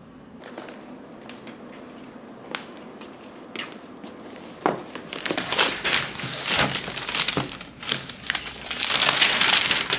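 Paper gift packaging rustling and crinkling as a gift is unwrapped and a gift box is handled, with scattered sharp clicks and scrapes. It starts faint, grows busy about halfway through and is densest in the last second or two.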